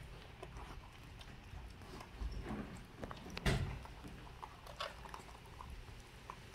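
Small clicks, taps and rustles of two baby monkeys picking sweet corn kernels off plates and eating, with one louder thump about three and a half seconds in.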